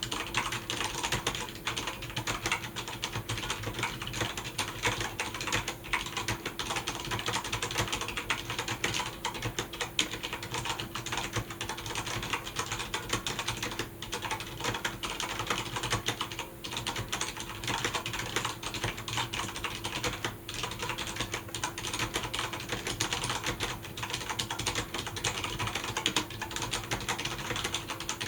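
Continuous fast typing on a Logitech G710+ mechanical keyboard with Cherry MX Brown switches, a dense run of key clacks, over a faint steady hum.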